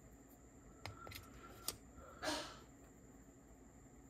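Faint plastic clicks and taps as a black plastic part is fitted onto a Sony TCM-200 cassette tape transport mechanism, three light clicks within the first two seconds, followed by a short breath.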